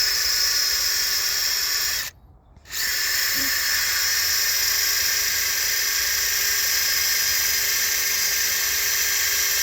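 Power drill boring a hole into a concrete footer, running steadily for about two seconds, stopping briefly, then running again.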